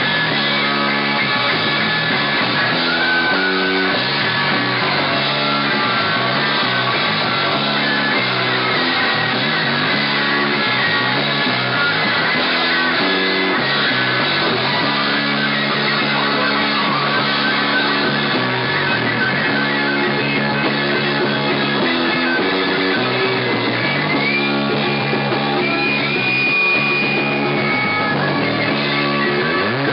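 Live rock band playing loud: electric guitars, bass guitar and a drum kit with cymbals. Near the end a high guitar note rises and is held for a couple of seconds.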